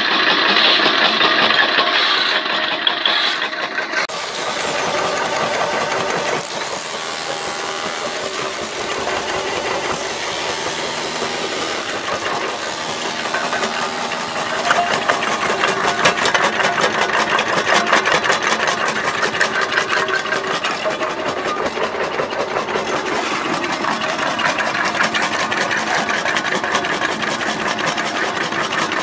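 Homemade jaw crusher, driven by an electric motor and fitted with a car-wheel flywheel, running and chewing brick and concrete rubble with a steady, rapid rattle of the jaws. It is louder in the first few seconds and again from about halfway.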